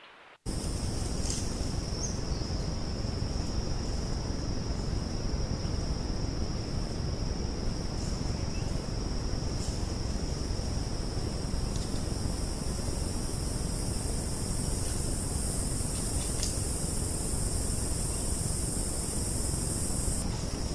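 Steady high-pitched insect drone in two unbroken bands over a constant hiss, starting abruptly about half a second in.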